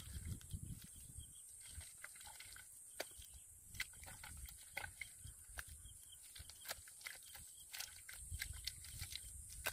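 Bare hands scooping and pressing wet mud in a dug hole: soft, irregular squelches near the start and again near the end, with scattered small sharp clicks throughout.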